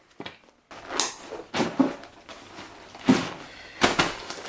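Handling noises: a series of short knocks and rustles, about five in a few seconds, with no whistle tone among them.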